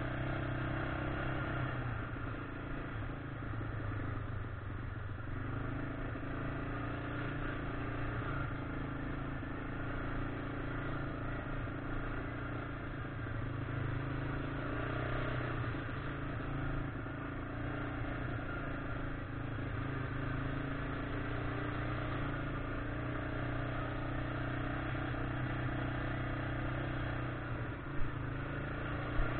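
1999 Yamaha Grizzly 600 ATV's single-cylinder four-stroke engine running at a steady trail speed, its pitch rising and falling a little with the throttle, with two sharp knocks near the end.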